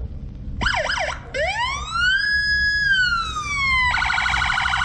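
A police car's electronic siren switched through its tones: a short burst of fast yelping, then one long wail that rises, holds and falls, then a rapid pulsing warble near the end.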